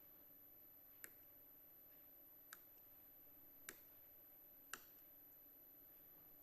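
Near silence: room tone with four faint, short clicks spread about a second apart.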